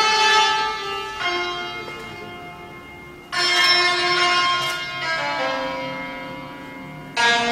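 Santur (Persian hammered dulcimer) played solo in the dastgah Segah: a few separate groups of struck notes, at the start, about a second in, about three seconds in and near the end, each ringing on with a long, bell-like sustain as it slowly dies away.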